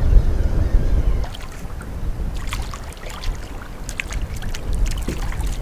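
Wind buffeting the microphone, heavy for about the first second and then easing, with scattered light clicks and ticks while a small fish is reeled in to the boat.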